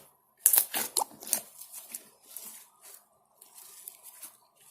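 Clear slime, freshly thickened with activator, crunching and crackling as it is squeezed and worked in the hands: a quick run of sharp crunches in the first second and a half, then fainter crackles.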